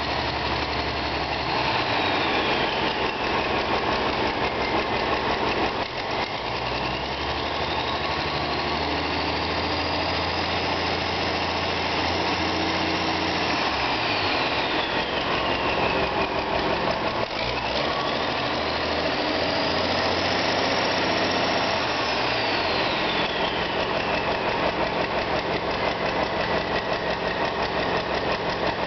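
Hanomag 964T turbocharged diesel engine running, revved up and held, then let back down, twice, with the turbo's whistle rising and falling along with the revs.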